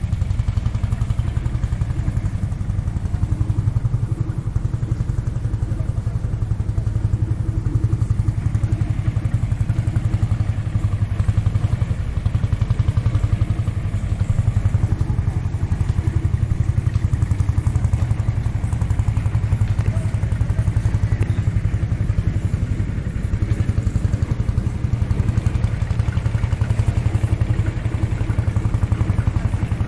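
Vintage tractor engine running steadily, a low, even beat that doesn't change.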